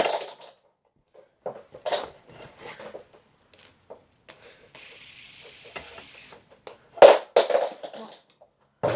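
Handling noise from a fidget spinner trick attempt: scattered light knocks and clatter, a steady hiss for about a second and a half midway, and a sharp loud knock about seven seconds in.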